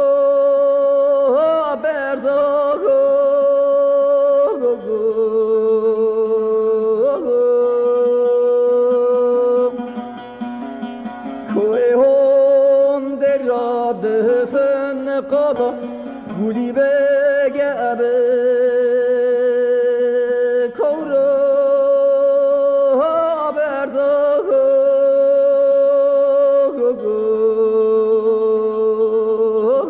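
Zaza folk song from a 1976 archival recording: a singing voice holds long, wavering notes with slides between them, over a faint plucked-string accompaniment. The recording sounds dull, with no high treble.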